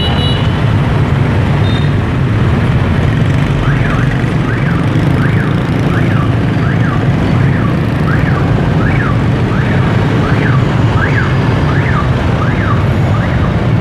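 Steady street-traffic and engine rumble. A few seconds in, an electronic siren-like wail starts, rising and falling over and over, a little under twice a second, and keeps going until near the end.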